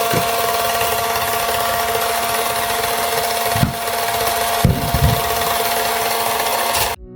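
Let's Resin 4-in-1 electric resin sander running with a steady whine and a hiss as its 80-grit disc grinds a resin piece, with a few knocks about three and a half and five seconds in. It cuts off suddenly near the end.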